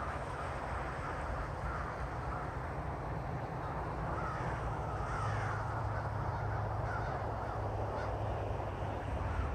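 A large flock of crows cawing, many calls overlapping into a continuous chorus, with a low steady rumble underneath.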